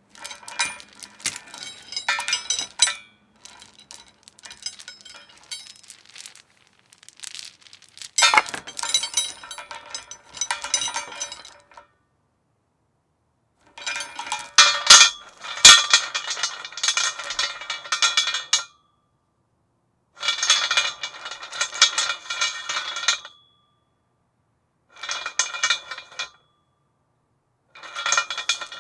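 Metal chain rattling and clinking against a metal post in about seven separate bursts of jangling, each a second to a few seconds long, with silences between. Some bursts end in a brief metallic ring.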